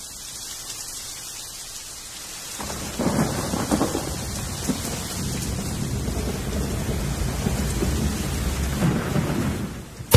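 Steady rain, joined about two and a half seconds in by thunder that rumbles on, loudest soon after it starts, and fades shortly before the end.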